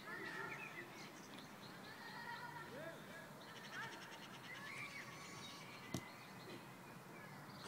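Faint, distant shouts and calls of women rugby players across the pitch, with birds chirping and one sharp click about six seconds in.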